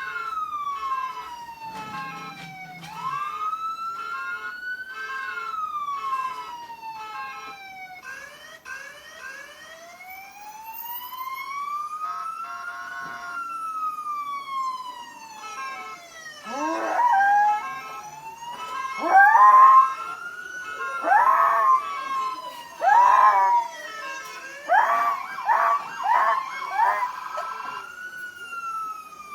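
Fire-engine siren wailing slowly up and down in pitch. From about halfway, a dog howls along in about seven short rising howls, louder than the siren.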